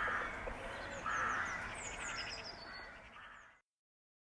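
Outdoor birdsong: small birds chirping in short high notes, with two louder, lower calls, one at the start and one about a second in. It fades out about three and a half seconds in.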